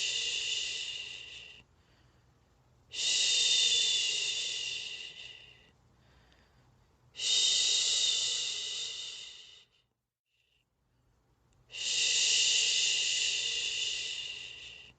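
A person's long, drawn-out 'shhh' shushing, repeated about every four seconds. Each shush starts sharply and fades over two to three seconds before a short breath pause: a soothing shush to lull a baby to sleep.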